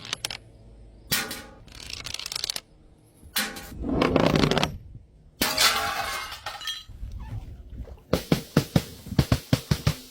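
Glass bottles smashing one after another: several crashes with ringing, tinkling tails, then near the end a quick run of about a dozen sharp cracks.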